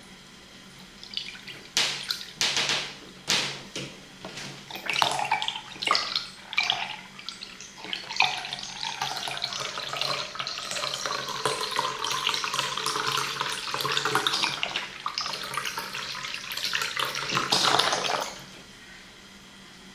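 Soy milk poured from a carton into a glass measuring cup. It starts with uneven glugs and splashes, then settles into a steady frothy stream that stops suddenly near the end.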